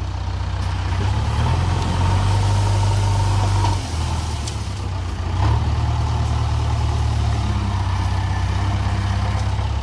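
A vehicle engine running, a steady low rumble that drops and returns a few times.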